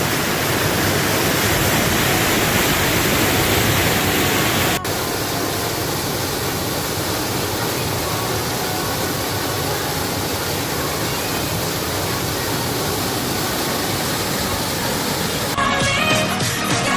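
Waterfall pouring steadily: the falls are fed by water released through the dam gates, a continuous rush of water noise. A sharp click about five seconds in, and music comes in near the end.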